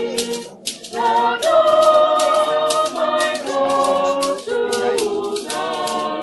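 A group of voices singing in long held notes, over a sharp rhythmic percussion beat of about three strokes a second.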